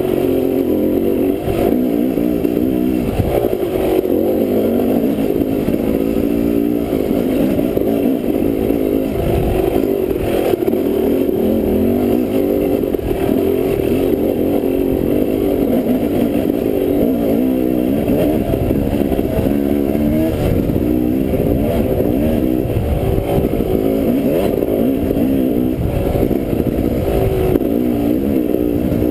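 Dirt bike engine running under way, its revs rising and falling with the throttle.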